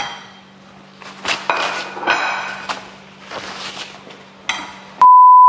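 A few scattered clatters and knocks of a plate and frying pan being handled. Near the end comes a loud, steady, high bleep tone of about half a second, dubbed over the sound track with the other audio cut out beneath it.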